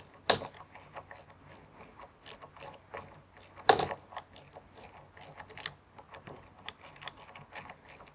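Hand Torx screwdriver working screws out of a reciprocating saw's metal gear housing: rapid runs of small clicks, with two louder metal knocks, one just after the start and one near the middle.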